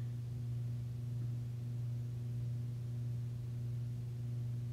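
A steady low electrical hum with a few fainter overtones above it.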